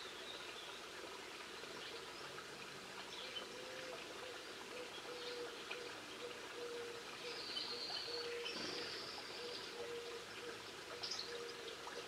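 Garden songbirds calling at a seed feeder: scattered short chirps, and two long, thin, high whistles a little past halfway, over a faint steady outdoor hiss with a low tone that repeats in short dashes.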